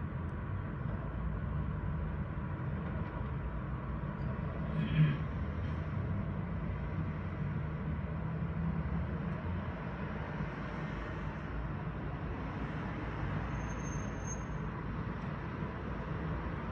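Steady hum of street traffic below, with cars driving past. There is a short, louder sound about five seconds in.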